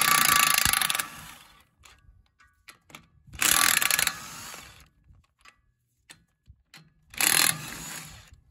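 Cordless DeWalt impact wrench hammering the knife bolts loose on a Vermeer BC1500 chipper drum, in three bursts of under a second each, one per bolt, each trailing off briefly, with small metallic clicks between.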